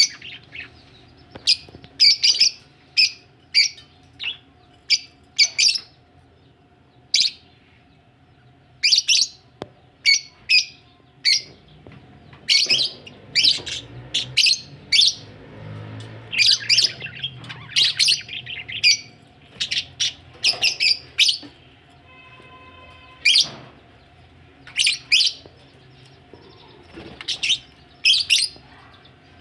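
Budgerigars chirping: short, sharp, high chirps and squawks in quick clusters, coming again and again.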